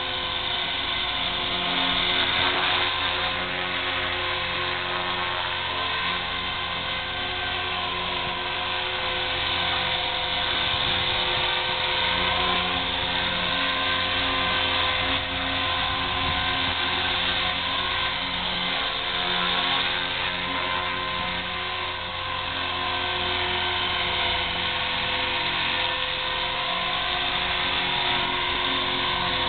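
Electric KDS 450 flybarless RC helicopter hovering low: a steady high whine from its motor and gears over the whir of the main rotor, the pitch wavering slightly as the hover is held.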